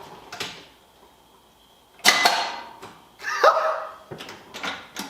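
A few sharp knocks and clicks, the loudest about two seconds in, with no engine cranking or running: the 1968 Corvette's electrics are dead, with no dash lights when the key is turned.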